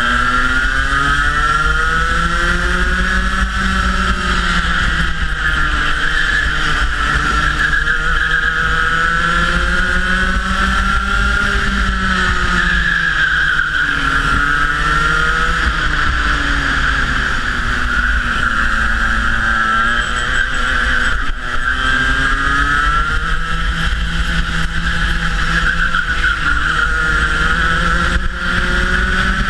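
Rotax Max 125cc two-stroke kart engine at racing speed, climbing in pitch along the straights and dropping back into the corners, over and over, with wind rumble on the microphone.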